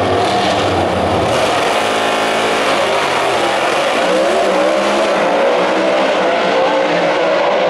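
Two full-bodied drag racing cars launching side by side and running down the strip at full throttle. Their engines climb in pitch through the gears, dropping back at each shift.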